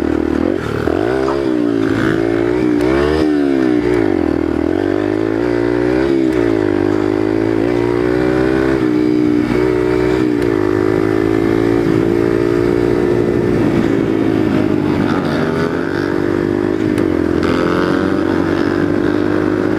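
Dirt bike engine revving up and down several times in quick blips, then running steadily at a higher speed, its pitch slowly rising.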